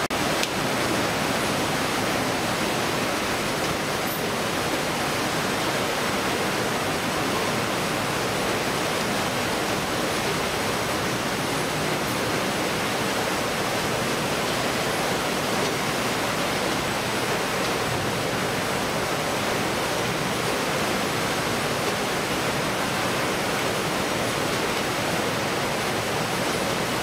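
Steady, unbroken rushing din of a fish-processing line at work: conveyors and machinery running with water washing over the belts, and a faint steady high tone above it.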